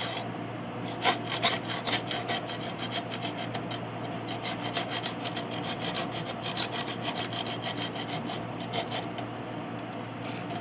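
Hand saw cutting a slot across a small threaded brass piece, rapid back-and-forth strokes rasping through the metal, busiest in the first part and easing off toward the end.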